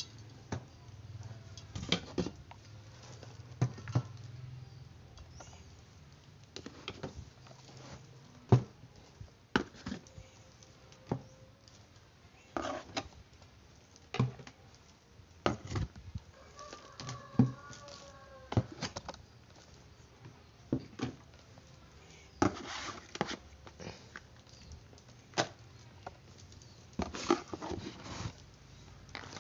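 Spare parts and their packaging being handled: scattered clicks, taps and knocks at irregular intervals, a few sharper than the rest.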